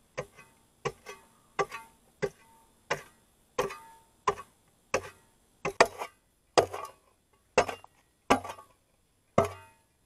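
A steel spade chopping repeatedly into stony clay soil, a sharp strike about every 0.7 seconds with loose earth and stones rattling after each.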